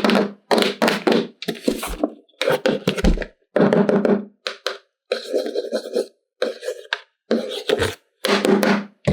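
A quick series of short knocks and thunks, each cut off abruptly by dead silence, about two chunks a second.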